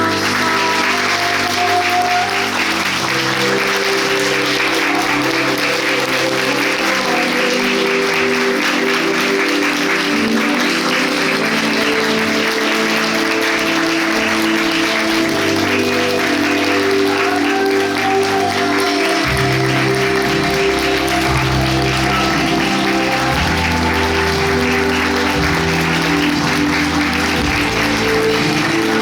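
Audience clapping steadily over music. A deeper bass part comes into the music about two-thirds of the way through.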